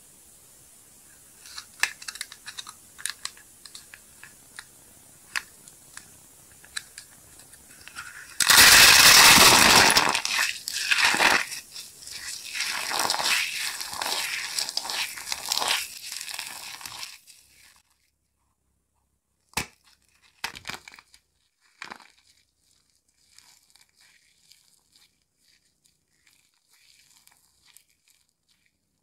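Hollow dry-soap balls being cracked and crushed in the hands. Scattered small cracks come first, then a loud crunching crush about eight seconds in. Crackling continues for several seconds after it, then only a few sparse cracks and faint crackles.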